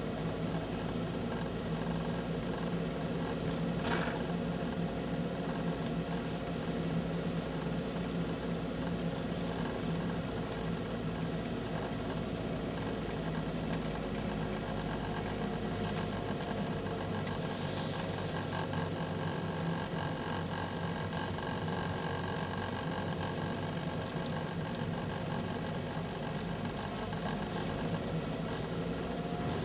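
A vehicle's engine running steadily while driving, heard from on board along with road noise.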